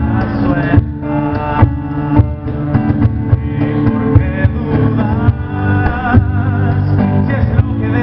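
Live acoustic song: a strummed acoustic guitar with a steady beat slapped on a cajón, and a man singing over it.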